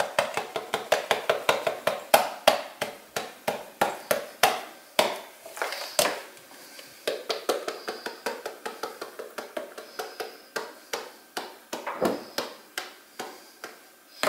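Spice shakers shaken hard over raw pork, giving a quick run of sharp taps and rattles, about four a second, with a short lull about halfway through.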